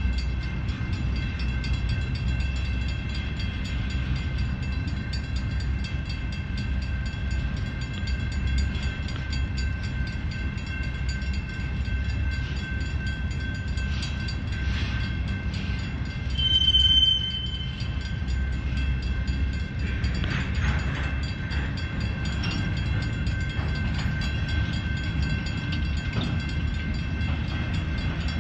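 Slow-moving freight train cars rolling past: a steady low rumble with several steady high tones over it, and a brief louder high squeal about 17 seconds in.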